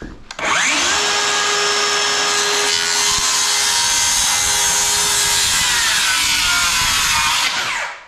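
DeWalt cordless circular saw spinning up, then cutting across a stack of shiplap boards with a loud, steady whine. Its pitch drops and it winds down near the end as the cut finishes.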